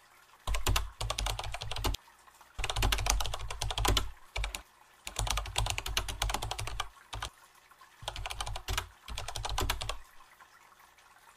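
Computer keyboard typing sound effect: four bursts of rapid key clicks with short pauses between them, stopping about ten seconds in.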